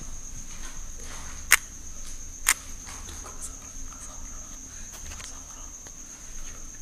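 Crickets trilling in one steady high note. About one and a half seconds in come two sharp clicks, a second apart, the loudest sounds here.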